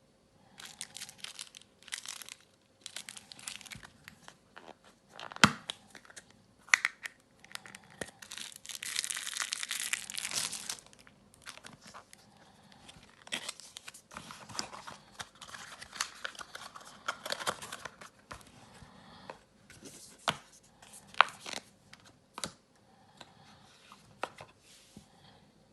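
Plastic or paper packaging being handled: stop-start crinkling and tearing, with a longer continuous rustle about eight to eleven seconds in and a few sharp clicks, the loudest about five seconds in and about twenty-one seconds in.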